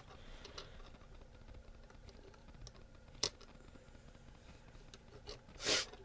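Faint sparse clicks and handling noise of jumper wires being pushed into an Arduino's header pins, with a sharper click a little over three seconds in and a brief rustle near the end.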